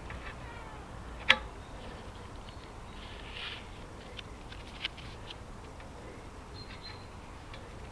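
A sharp click about a second in, a smaller click near the middle, and scattered light ticks and a brief scrape over a low steady background.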